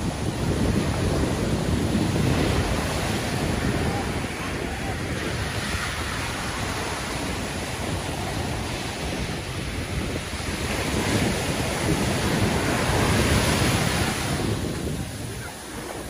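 Ocean surf: waves breaking and foam washing up the sand, with wind buffeting the microphone. The wash swells louder a couple of seconds in and again past the middle, then eases near the end.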